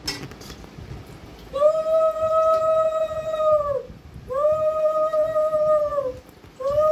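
Conch shell (shankha) blown in long, steady blasts. Two are held for about two seconds each, and a third starts near the end; each one sags in pitch as it dies away.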